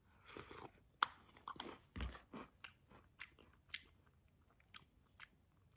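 Close-up chewing of a mouthful of KitKat cereal in milk: faint, irregular crunches and wet mouth clicks.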